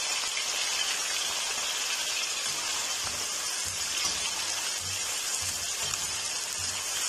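Cut potatoes deep-frying in hot oil: a steady, dense sizzle like rain.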